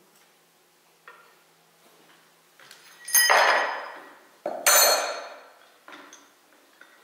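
Two loud metallic clanks about a second and a half apart, each ringing briefly as it fades, from steel press parts knocking against a cylinder liner in a Belarus 820 tractor engine block. A few lighter clicks of metal being handled come before and after.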